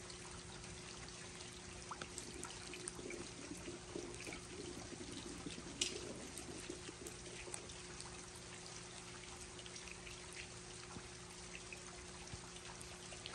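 Rain falling, with water pouring and trickling and scattered drips landing, one sharper drip about six seconds in. A steady low hum runs underneath.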